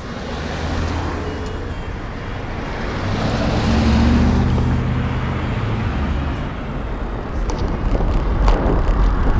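A car driving past close by, its engine hum and tyre hiss swelling to a peak about four seconds in and then fading. Near the end a rough, gusty wind rumble on the microphone of a moving bicycle takes over.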